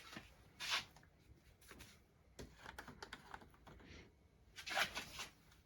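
Faint handling noises from a bottle of isopropyl alcohol and folded paper towels: scattered light clicks and ticks, with two short rustles, one about a second in and one near the end.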